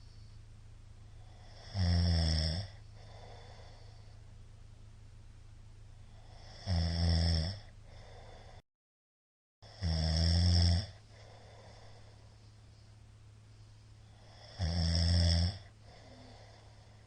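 A middle-aged man snoring heavily in his sleep: four long snores, each under a second, about every four to five seconds, with faint breathing between. The sound cuts out to silence for about a second just before the third snore.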